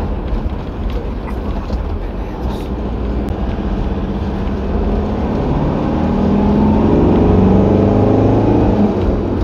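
Motorhome on the road: steady engine and tyre rumble, with the engine note rising about halfway through as it speeds up.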